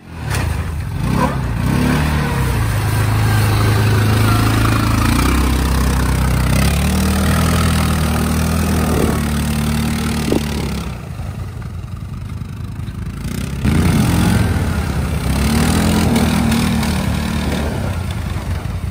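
A vehicle engine running hard under load, its pitch rising and falling as it is revved. It drops back for a few seconds around the middle, then revs up again.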